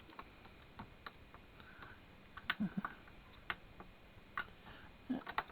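Scattered clicks and a few light knocks of a hi-fi system being handled, its buttons and switches pressed while working out how it turns on.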